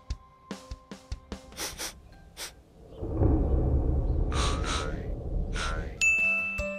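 Cartoon sound effects: a low rumbling whoosh with a few short breathy bursts, then a bright ding about six seconds in, the light-bulb 'idea' cue, after sparse light music.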